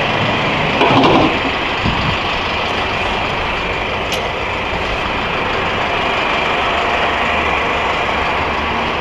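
Steady vehicle engine idling under a dense, even background noise, with a brief louder noise about a second in and a single sharp click about four seconds in.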